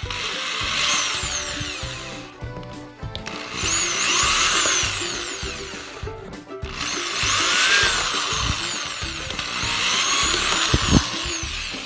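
Cordless drill boring holes into a plastic enclosure in three runs, breaking about two and a half and six and a half seconds in, its whine gliding up and down in pitch as it cuts. Background music plays underneath.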